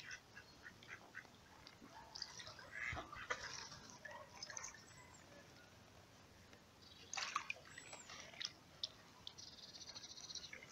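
Mallard ducks quacking and calling in scattered short bursts, busiest about two seconds in and again about seven seconds in.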